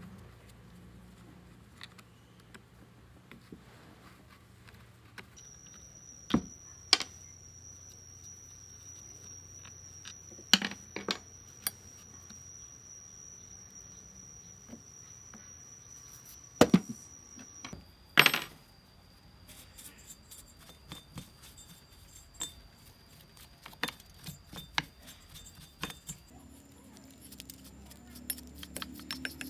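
Hand tools clinking and knocking on the metal and plastic parts of a dismantled, rusty Shindaiwa 685 chainsaw: a few sharp strikes spread well apart. In the second half come quicker small clicks and scratching as a brush scrubs debris from the cylinder fins.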